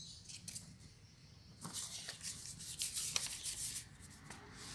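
Metal utensils scraping and clicking against a stainless steel bowl while mashing tofu: a few light clicks near the start, then about two seconds of rapid scraping strokes.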